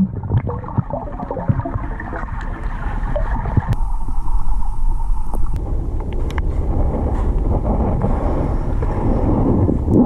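Underwater noise picked up by a submerged camera: a dense low rush and gurgle of moving water. About four seconds in the sound changes and the higher hiss drops away.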